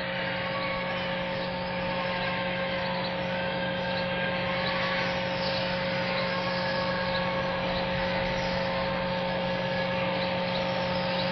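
Steady ambient noise with a constant hum from a large mosque's open broadcast microphones, with no voice, during the silent prostration of a congregational prayer.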